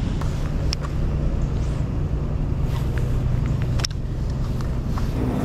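A steady low engine hum, with a few brief light clicks over it.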